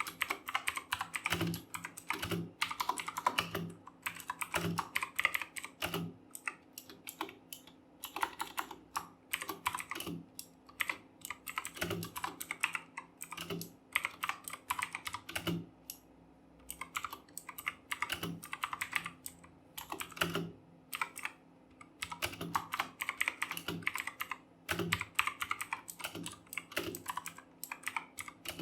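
Fast typing on a RedGear Chameleon mechanical keyboard with clicky Kailh Blue switches: rapid runs of key clicks broken by brief pauses.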